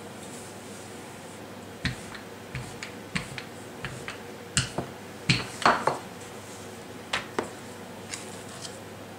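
Kitchen utensils clinking and knocking against dishes, about a dozen irregular sharp taps spread over several seconds, loudest a little past the middle.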